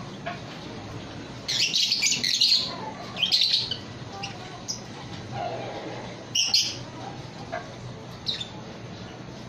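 Lovebirds giving shrill chirps and squawks in a few short bursts: the busiest stretch comes a little over a second in, with more about three seconds in and around six and a half seconds. A low steady hum runs underneath.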